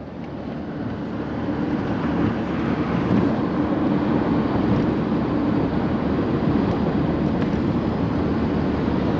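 Truck driving on the road: steady engine and road noise that builds over the first couple of seconds and then holds even.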